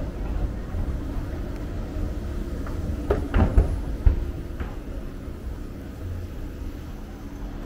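Steady low rumble of the airport SkyTrain people mover running, heard from inside the car, with a few clunks and rattles about three to four seconds in.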